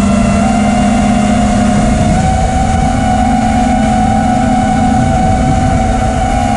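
FPV quadcopter's four Emax Eco 2207 1900kv brushless motors, spinning Ethix S4 props, whining at a nearly steady pitch that steps up slightly about half a second in. It is heard through the quad's onboard GoPro.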